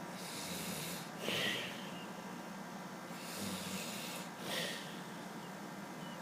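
A man snoring in his sleep: two slow breaths about three seconds apart, each a drawn-out rasping in-breath with a low rumble, ending in a short, louder puff.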